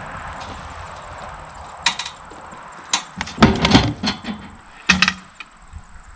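Several sharp knocks and clunks: single hits about two and three seconds in, a quick cluster of them around three and a half seconds, and one more near five seconds. Under them, a steady hiss fades away over the first two seconds.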